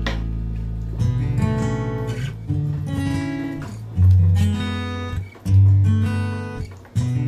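Background music on acoustic guitar: plucked and strummed chords, a new chord struck about every one and a half seconds, with deep bass notes about four and five and a half seconds in.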